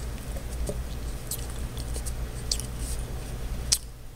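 Felt-tip marker drawing short dashes on paper: a scattered series of brief, light scratchy squeaks, over a steady low hum.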